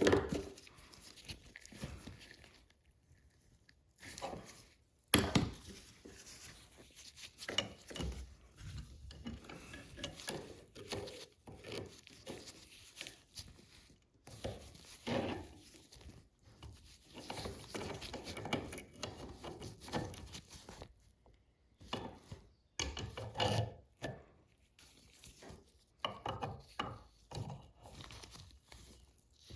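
Hand work on a bench vise being taken apart: scattered knocks, taps and rubbing of parts being worked loose, with one sharp knock about five seconds in.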